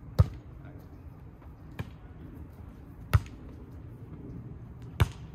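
A volleyball being struck by players' hands and arms during a rally: four sharp slaps spaced about a second and a half to two seconds apart, the second one fainter.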